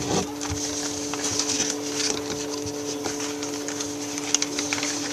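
A sheet of paper being folded and creased by hand: rustling and small crinkling clicks, with a sharp tap about four seconds in, over a steady background hum.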